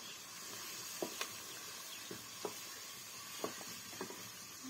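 Food sizzling faintly in a steel wok over a wood-fired clay stove as a ladle stirs it: a steady soft hiss with a few scattered light clicks.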